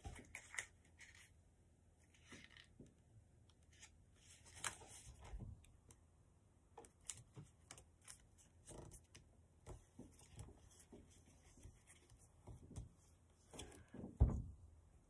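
Paper being folded and creased by hand: faint rustling and crinkling with scattered sharp crackles, and a single thump near the end.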